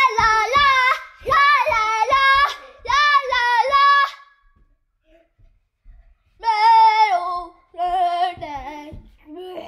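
A young child singing a tune in short, high-pitched phrases, breaking off for about two seconds in the middle before singing again.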